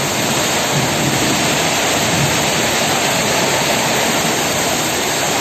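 Rain falling steadily, a loud, dense, even hiss.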